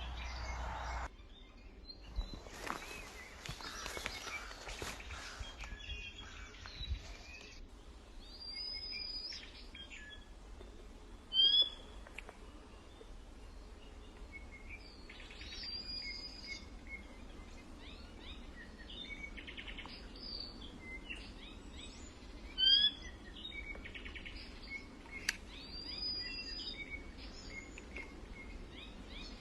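Aviary birds chirping and calling: many short, high chirps and whistles, with a couple of louder short calls standing out. A brief rustling noise comes near the start.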